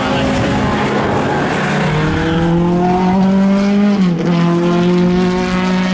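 Race car engine accelerating hard, its pitch climbing steadily, then a quick gear change just after four seconds in, after which the pitch climbs again.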